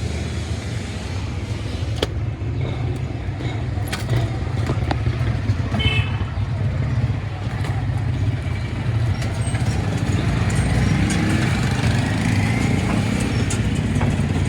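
A steady low mechanical rumble, like a running engine or motor, with a few sharp clicks and knocks.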